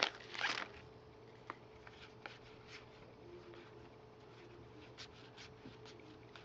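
Plastic wrapper of a trading-card pack crinkling briefly at the start, then faint, scattered clicks and rustles of cards being handled and sorted.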